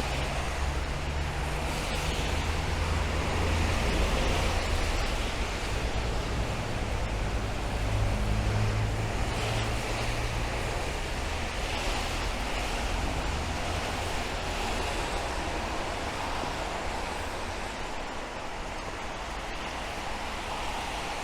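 Steady hiss of rain falling on city streets, with road traffic passing close by: a low engine and tyre rumble that swells twice in the first half and then fades away.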